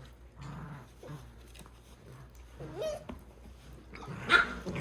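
Welsh Springer Spaniel puppies vocalising as they play: a short whine that rises and falls about three seconds in, then a louder burst of puppy noise near the end.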